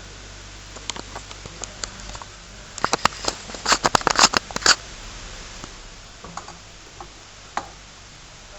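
A run of small, sharp clicks and taps of hard objects being handled, densest in a quick flurry about three to five seconds in, over a steady background hiss and low hum.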